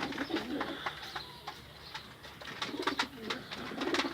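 Pigeons cooing in a low, rolling murmur, with many short, sharp ticks and chirps over the top.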